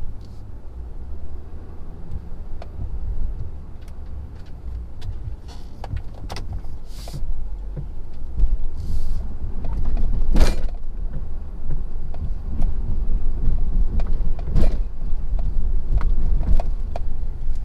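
2017 Ford F-250 Power Stroke diesel pickup plowing heavy snow with a V-blade: a steady low rumble with scattered knocks and rattles. There are two short hisses about seven and nine seconds in, and sharp thumps about ten and a half and fifteen seconds in, the first the loudest, as the blade jolts over the gravel road.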